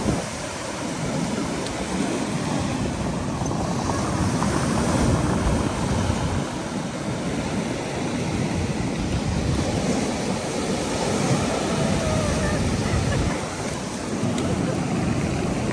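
Ocean surf breaking and washing over a wet concrete slipway, with wind buffeting the microphone in a steady, uneven rumble.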